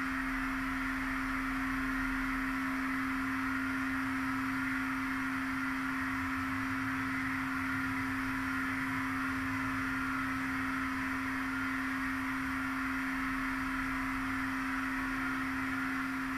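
Electroacoustic improvisation: a single pure electronic sine tone held unchanging at a low-mid pitch, over a steady band of hiss.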